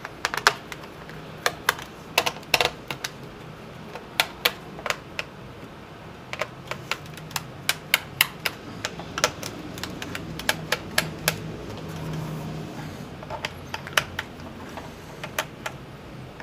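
Small screwdriver and fingers clicking and tapping on the plastic bottom case of a Dell Inspiron 1525 laptop while its access-cover screws are undone: irregular sharp clicks, sometimes two or three close together, over a faint low hum.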